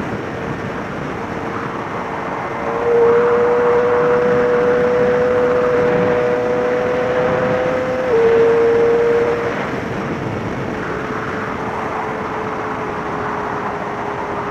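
Yamaha inline-four sport bike engine running at high revs, heard from on board at speed. It holds a high pitch that climbs slowly and grows louder about three seconds in. About eight seconds in the pitch drops in a quick step, a gear change, and after that the engine runs quieter and steadier.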